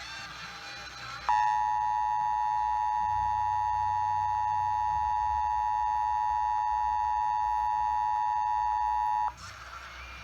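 Emergency Alert System two-tone attention signal, a steady dual-tone alarm sounding for about eight seconds. It starts about a second in and cuts off sharply near the end, announcing an incoming warning. Before it comes a second of faint hiss.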